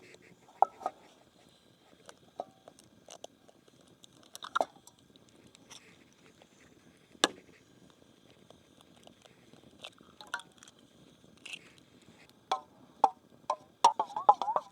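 Scattered clicks and knocks of camp cookware being handled over a campfire cooking setup, ending in a quick run of gurgling as liquid begins to pour.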